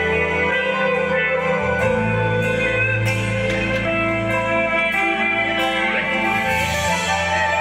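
Live pop-rock band playing, with guitars prominent over a steady bass line; the bass notes change about two seconds in and again near the end.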